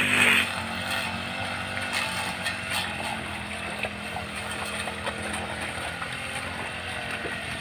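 A motor running steadily, its low hum holding one pitch.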